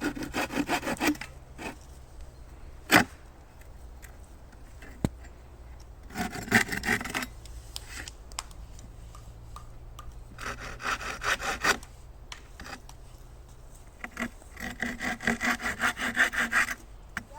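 A hand saw cutting wood in four short bursts of quick rasping strokes, with a sharp crack about three seconds in.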